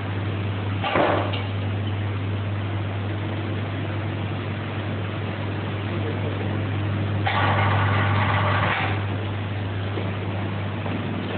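Steady low machine hum, with a short burst of noise about a second in and a louder rushing noise lasting about a second and a half near the two-thirds mark.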